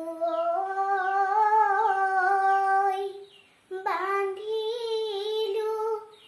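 A young girl singing an Assamese Bihu naam folk song solo, with no accompaniment, in long held, wavering notes. A first phrase is followed by a brief breath about three seconds in, then a second phrase.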